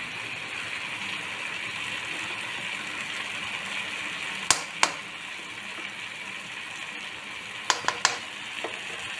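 Paneer, onions and tomatoes sizzling steadily in coconut oil in a wok, with a few sharp clicks of a metal spoon against the pan: two about halfway through and three more near the end.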